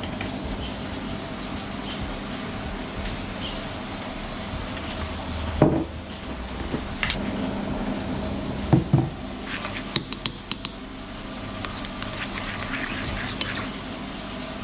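Hoisin and peanut butter sauce being made in a ceramic bowl: a few knocks of jar and bottle handling, a quick run of clinks against the bowl, then scraping as the sauce is stirred. Underneath is a steady hiss from the lobster sizzling in the frying pan.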